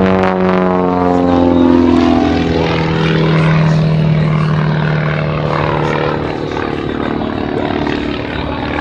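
Pitts S-1S aerobatic biplane's propeller engine running as it flies past, its pitch falling over the first couple of seconds and then holding steady.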